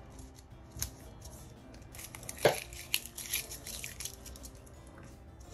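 Paper and sticker sheets being handled at a planner: rustling and crinkling with a few light clicks, a sharp tap about two and a half seconds in, then a short run of quick crackles.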